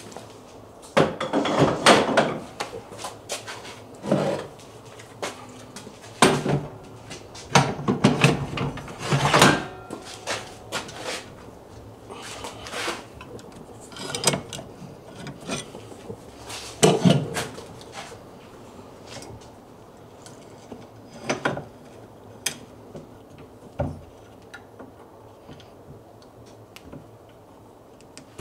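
Steel parts of a Brodbeck Ironworks belt grinder clanking, knocking and scraping as the flat platen attachment is taken off and a small-wheel attachment is fitted, with the grinder motor off. The knocks come thick in the first ten seconds, then more sparsely.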